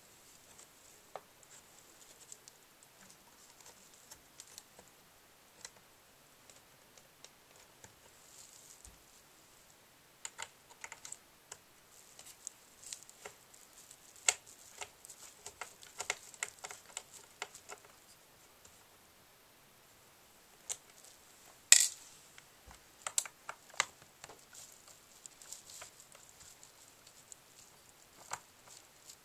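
Scattered small clicks and taps of a small screwdriver and tiny screws being worked out of a Dell XPS M1530 laptop's screen frame, with one sharper click about 22 seconds in.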